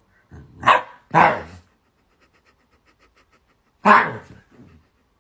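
Puppy barking three times: two short barks in quick succession about a second in, and a third a little before the end, with soft huffs after them.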